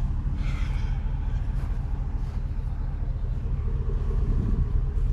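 Steady low mechanical hum, like a motor or engine running, with a brief faint higher sound about half a second in.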